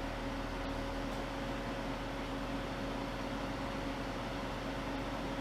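1994 Toyota Land Cruiser FZJ80's 4.5-litre inline-six engine idling with a steady hum.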